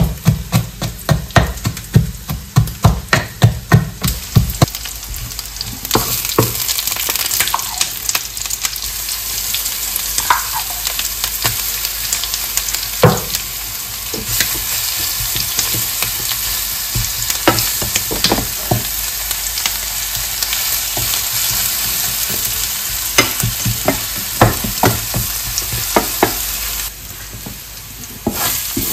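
Food sizzling in a frying pan as it is stirred, with frequent sharp clicks and scrapes of the utensil against the pan. The sizzle turns louder about six seconds in. A background music beat plays for the first few seconds.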